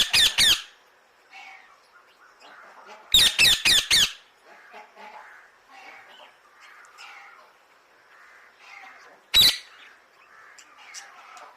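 Parrot squawking in quick runs of short, harsh calls: about four at the start, about five some three seconds in, and a single one near nine seconds. Faint chirps fill the gaps between the runs.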